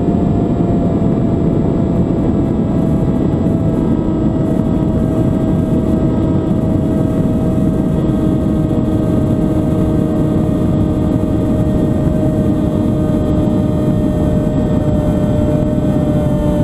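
Steady whine of a small camera aircraft's motors and propellers, heard from on board, over a heavy rush of air. The main pitch drifts slowly down.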